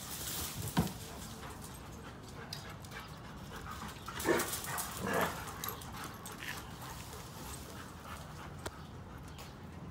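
A dog gives two short vocal cries about four and five seconds in, over the light sounds of a dog moving about. A single sharp knock sounds just under a second in.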